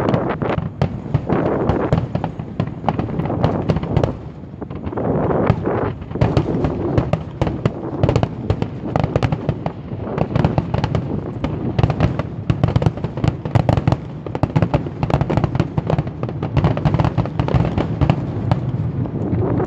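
Fireworks going off in rapid succession: a dense run of sharp bangs and crackles, many a second, over a low rumble, with a brief lull about four seconds in.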